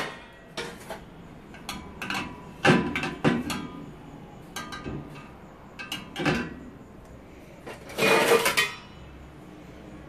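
Plates being set into a dishwasher's lower wire rack, clinking and knocking against the rack and each other in a series of short clatters. The longest and loudest clatter comes about eight seconds in.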